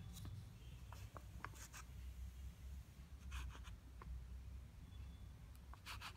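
Edge of a folded paper card scraping through a layer of talcum powder, about four faint, short scratchy strokes a second or two apart, over a low steady hum.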